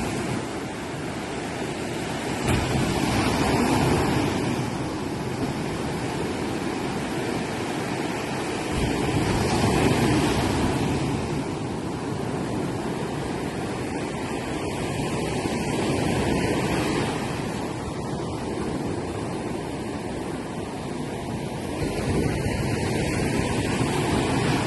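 Sea waves breaking and washing up on a beach: a steady rush of surf that swells every six or seven seconds as each wave comes in.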